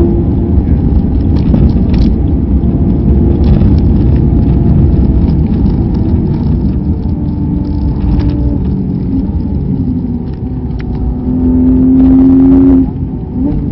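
In-car sound of a race car driven flat out: a dense engine note over road and wind rumble, its pitch sliding slowly lower as the car slows from about 230 km/h. Near the end a louder steady engine tone cuts off sharply, followed by quick rising blips as the car brakes into a corner.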